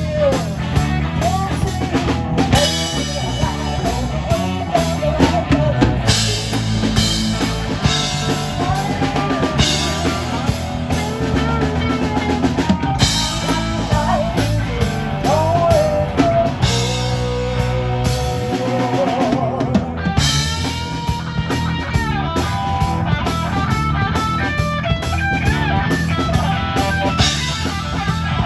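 Live rock band playing: a driving drum-kit beat and electric guitars under a woman singing lead into the PA.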